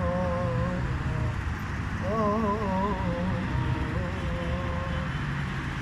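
Unaccompanied singing voice humming the closing melody of the song in three short wavering phrases, over a steady low rumble.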